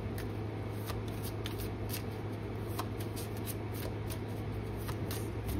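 A deck of oracle cards being shuffled by hand: irregular soft card snaps, a few a second, over a steady low hum.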